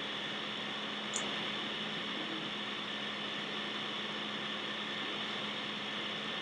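Steady hiss with a low hum underneath, and one faint click about a second in.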